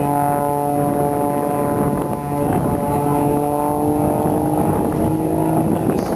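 Aerobatic display plane's piston engine and propeller droning steadily in flight.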